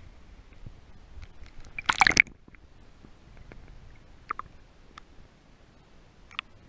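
Water splashing and sloshing against a GoPro housing as it goes under the surface: one short, loud splash about two seconds in, then a few faint clicks underwater.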